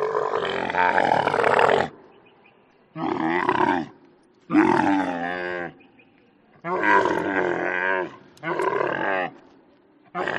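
A camel calling repeatedly: five long, wavering calls of about a second each, with short pauses between them.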